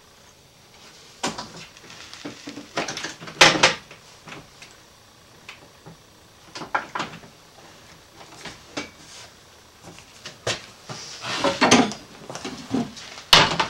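Irregular knocks, clicks and rattles of hands handling hardware on a workbench, the loudest a little over three seconds in.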